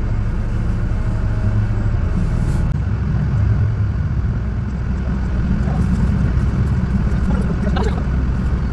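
Vehicle engine running steadily with a low rumble, in four-wheel-drive low while towing a stuck car out of snow on a rope. A brief higher wavering sound comes in near the end.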